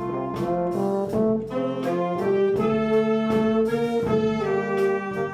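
Brass band playing a tune, with held notes changing in a steady rhythm.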